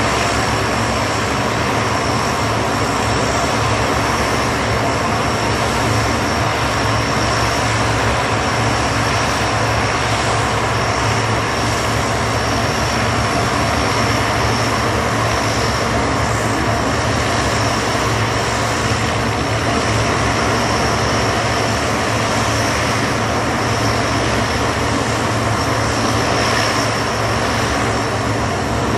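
Lockheed C-130 Hercules's Allison T56 turboprop engines running steadily on the ground: a constant drone with a high-pitched whine over it.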